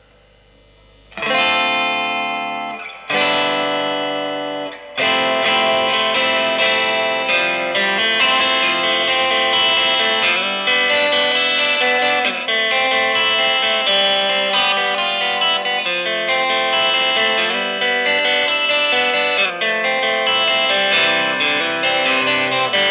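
Electric guitar, a Fender Japan ST-62 Stratocaster with Lollar '64 single-coil pickups, played clean with light gain through a miked Fender Blues Junior valve amp and no pedals. After a quiet first second, two chords are struck and left to ring, then continuous picked playing follows.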